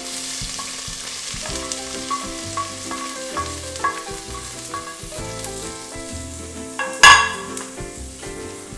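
Chopped onion sizzling in hot oil as it is scraped into a stainless-steel pot with a wooden spoon, a steady frying hiss. A sudden loud burst about seven seconds in.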